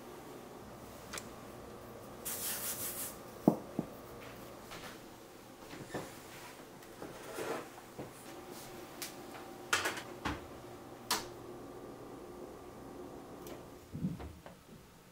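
Kitchen handling noises over a faint steady hum: a brief rustle about two seconds in, then scattered light knocks and clicks, the sharpest about three and a half seconds in.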